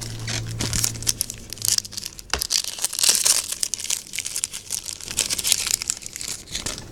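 Foil wrapper of a Yu-Gi-Oh! Duel Power booster pack crinkling and tearing as it is handled and ripped open, with many sharp crackles, loudest about three seconds in.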